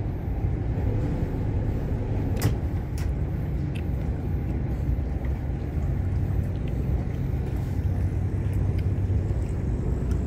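The catamaran's one working engine running steadily at low speed, a low rumble; the port engine's starter has failed, so the boat is moving on a single engine. A sharp click about two and a half seconds in.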